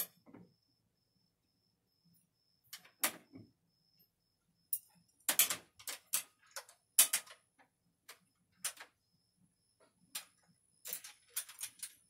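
Irregular metal clicks and clinks as a storm-door handle's cover plate, screws and screwdriver are handled and fitted against the door edge, a few taps early on and a quicker run of them in the second half.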